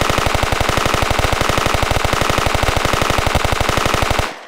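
Automatic-gunfire sound effect: one long, unbroken burst of rapid machine-gun fire, about fourteen rounds a second. It stops sharply near the end and dies away in an echo.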